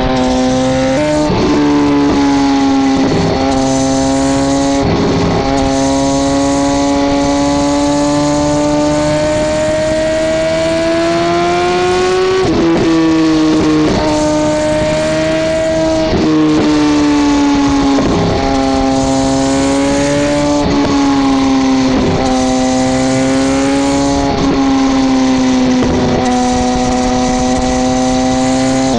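2009 Suzuki GSX-R1000's inline-four engine running through a Two Brothers M2 exhaust, heard close to the muffler while the bike cruises at steady throttle. The exhaust note climbs slowly in pitch over the first dozen seconds, steps up briefly, then settles and holds with small rises and dips.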